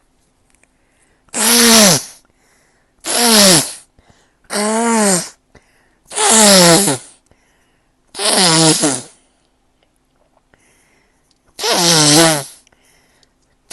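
A person sneezing over and over from spring allergies: six loud voiced sneezes, each with a pitch that drops, one to three seconds apart, and a seventh beginning at the very end.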